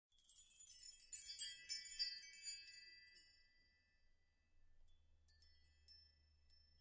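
Quiet background music of high, bell-like chime notes like a glockenspiel or music box. A quick run of notes in the first three seconds fades away, then a few single notes follow near the end.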